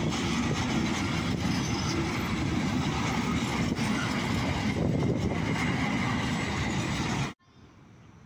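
Freight train of container wagons rolling past at close range, a steady loud rush of wheel and wagon noise with a few faint clicks. It cuts off suddenly about seven seconds in.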